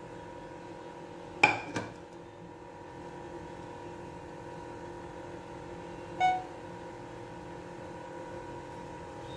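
A silicone spatula spreading cream over vermicelli in a frying pan, with short knocks: two close together about a second and a half in, and one about six seconds in. Under it runs a steady faint hum.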